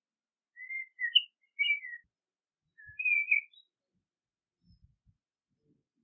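Male Eurasian blackbird singing two short warbled phrases of song, the first starting about half a second in and the second following about a second later.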